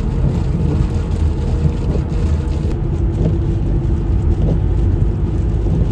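Steady low rumble of road and tyre noise inside the cabin of a Ford Mustang convertible driving at highway speed on a wet, slushy road.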